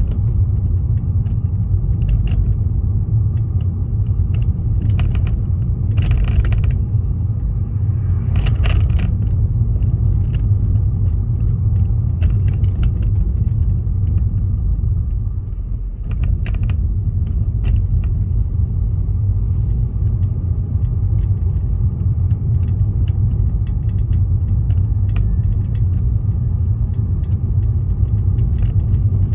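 Steady low rumble of a car driving on city streets, heard from inside the cabin, with scattered light clicks and rattles. Two brief hisses stand out about six and nine seconds in.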